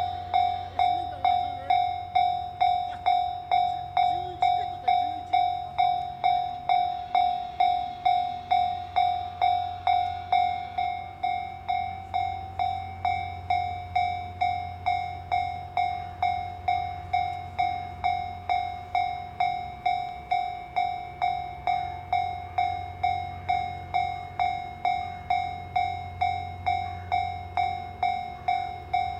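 Japanese railway level-crossing alarm ringing: a steady run of electronic bell tones, about two strikes a second, each one dying away, with a low rumble underneath.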